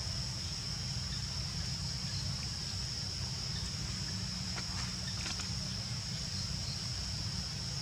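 Steady high-pitched drone of insects over a low rumble of wind on the microphone, with a few faint clicks about halfway through.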